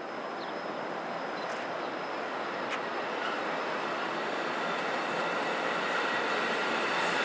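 New Jersey Transit multilevel passenger train approaching and rolling past: a steady rush of wheels on rail that slowly grows louder, with faint high ringing tones coming in about three seconds in.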